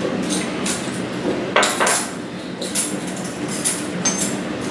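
Metal measuring spoons on a ring clinking and jangling as they are handled on a stone counter: a series of sharp clinks, the loudest about a second and a half in.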